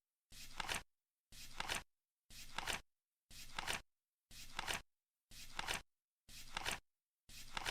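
Flip-clock sound effect ticking off the countdown once a second: each flip is a short rustling flap that ends in a sharp double click, eight of them, with dead silence between.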